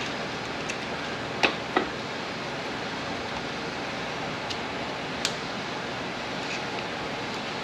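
A small hand tool working at the cast aluminium case of an MT82 manual transmission: a few short, sharp metal clicks, two close together about a second and a half in and another around five seconds in. Under them runs a steady hiss.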